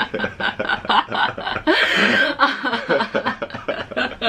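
Two people chuckling and laughing, mixed with bits of talk.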